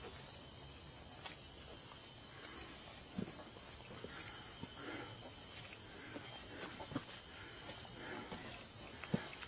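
A steady, high-pitched chorus of crickets and other insects in the evening woods, with scattered soft footsteps on the forest floor.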